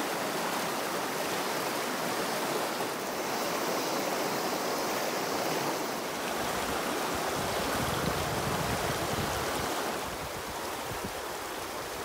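Shallow rocky mountain river rushing over stones in a riffle: a steady rush of flowing water.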